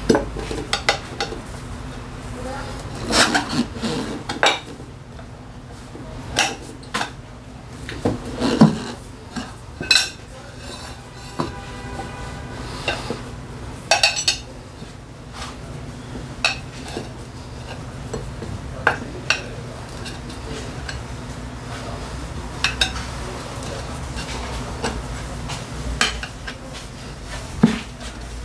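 Steel tire levers clanking and scraping against a scooter wheel rim as a tire is pried over the rim by hand: irregular metallic clanks every second or two, a few ringing briefly.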